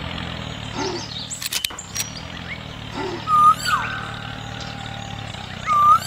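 A steady low engine drone, with bird-like whistled calls over it: twice a short whistle drops into a long held tone. A few sharp clicks sound about a second and a half in.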